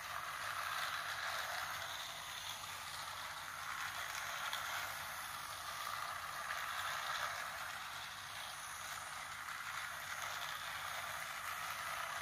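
Battery-powered toy train running along its plastic track: a steady whir that swells and fades every few seconds as it goes round.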